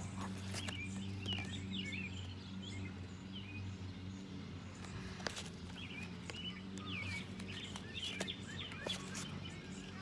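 Birds chirping repeatedly in short, quick calls over a steady low hum, with a few sharp clicks, the clearest about five seconds in.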